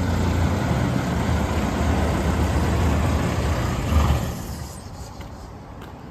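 Diesel engine of a JLG G12-55A telehandler running steadily at idle, with a brief louder peak about four seconds in, after which the sound falls much quieter.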